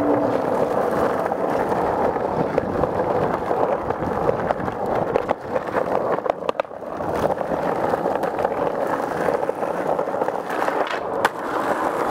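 Skateboard wheels rolling over rough asphalt: a continuous gritty rumble, broken by a few sharp clacks from the board.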